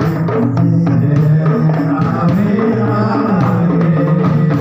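Hadroh ensemble playing sholawat: a man singing into a microphone over a rhythm of hand-struck frame drums (rebana) and a bass drum.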